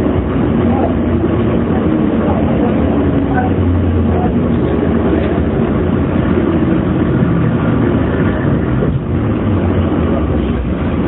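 Running sound inside a JR 115 series electric train's motor car: steady wheel-on-rail rumble and traction motor hum, with the cabin air conditioning running. The car has an abnormal wind-like noise, which the uploader finds hard to pick out under the air conditioning.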